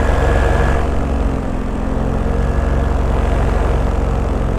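Paramotor engine and propeller running steadily in flight, a little quieter from about a second in.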